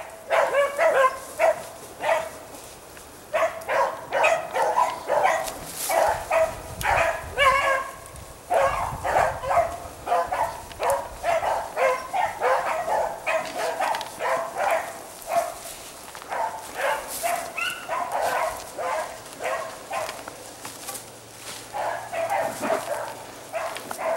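A pack of rabbit beagles bays in quick, repeated barks as they run a rabbit's scent trail, several voices overlapping. There are brief lulls about two seconds in and again near the end.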